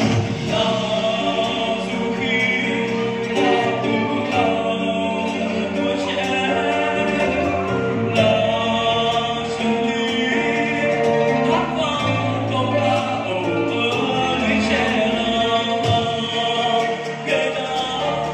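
A Vietnamese song performed live: a male vocalist singing into a handheld microphone over amplified backing music.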